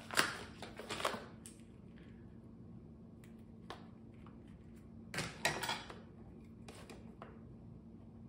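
Clicks, knocks and rustling from a coiled cable and a plastic carrying case being handled. The sounds are strongest in the first second and again about five to six seconds in, with scattered single clicks between, over a faint steady hum.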